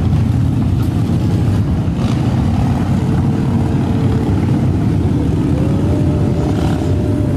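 Many motorcycles riding past in a steady stream, their engines running together in a continuous low drone.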